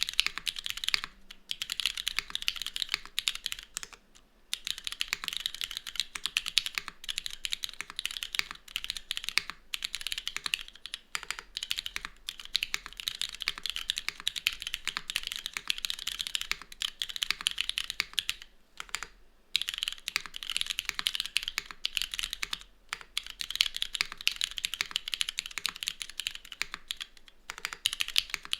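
Continuous fast typing on a Cloudnine R2 mechanical keyboard with linear Cherry MX2A Black switches, a full aluminium plate, tadpole mounting and no foam or dampening. Dense, rapid key clacks with a few short pauses.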